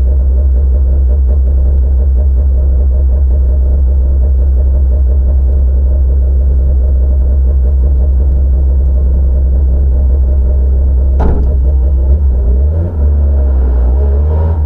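Citroën C2 R2 rally car's 1.6-litre four-cylinder engine idling steadily with a heavy low rumble inside the cabin. About eleven seconds in there is a sharp clunk, and then the revs rise and fall as the car pulls forward.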